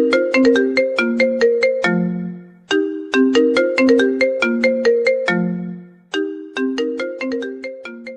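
A phone ringtone melody of short struck notes, a quick tune that repeats its phrase about every three and a half seconds.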